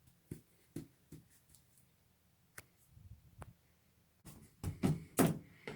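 Handling of a cardboard shipping tube: a few scattered light taps and clicks, then a denser run of louder knocks and scrapes about four seconds in.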